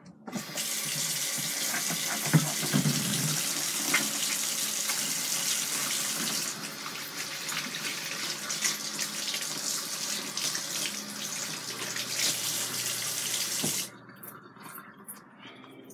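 Kitchen sink faucet running as hands are washed under the stream. It is turned on just after the start and shut off abruptly about fourteen seconds in.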